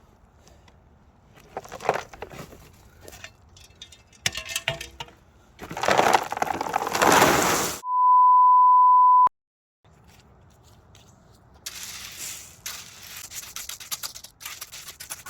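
Gravel ballast being scraped and shifted by hand with a rake or shovel, with a loud rush of stones about six seconds in. Right after it comes a steady high beep lasting about a second and a half that cuts off abruptly into a moment of dead silence, and then the scraping resumes.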